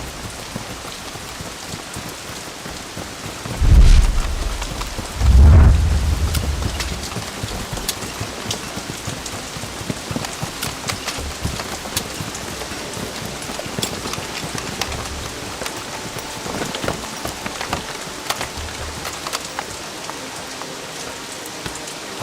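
Heavy rain falling steadily, with two thunderclaps about four and five and a half seconds in, the second rumbling away over a couple of seconds.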